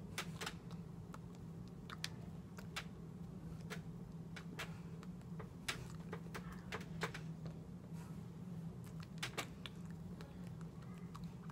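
Irregular sharp taps and clicks of hands and fingers striking each other during signing, over a steady low hum.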